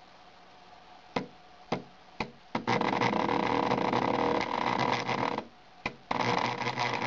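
Dremel rotary tool that no longer starts on its own, its motor catching and running briefly when the shaft is spun by hand. A few clicks come first, then the motor runs with a rough whir for about two and a half seconds, stops, clicks once, and runs again for about a second and a half.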